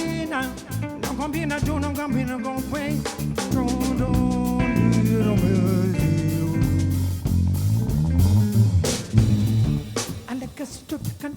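Live improvised music from a bass, guitar and drum kit trio, with a wavering vocal line over the first few seconds. A heavy drum hit lands about nine seconds in, and the drums come forward after it.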